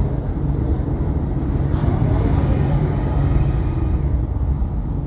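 A steady low rumble of background noise, with a swell of brighter noise about two seconds in that fades again about a second later.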